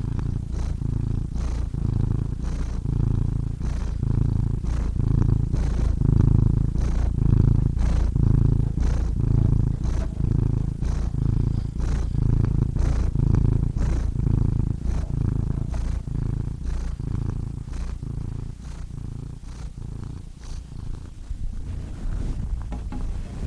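Domestic cat purring close up: a steady low rumble that swells and eases in an even rhythm with each breath in and out, a little more than once a second.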